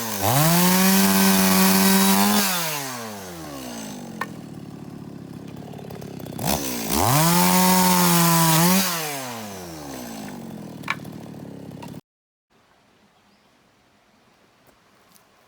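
Petrol chainsaw revved to full speed twice, each run about two seconds, while cutting firewood logs, dropping back to idle between runs. The sound cuts off abruptly near the end, leaving faint outdoor quiet with a few small ticks.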